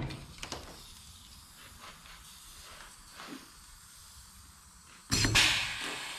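An air-powered rivet gun hisses loudly for about a second, about five seconds in, as it pulls and sets a rivet in a sheet-metal fender patch panel. A few light clicks come before it, near the start.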